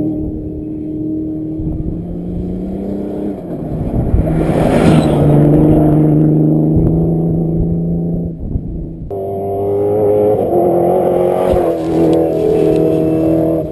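Rally car engines running hard as the cars pass close by on a dirt track, with a rush of noise about four to five seconds in. The sound changes abruptly about nine seconds in to another engine running at a steadier, higher pitch.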